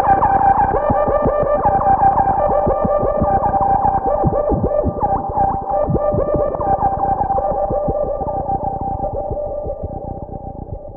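Novation Bass Station 2 analogue synthesizer drone with its envelope retriggering in a loop, through a Space Echo-style tape-echo effect: a steady pitched tone under quick, repeating falling blips that fade away near the end.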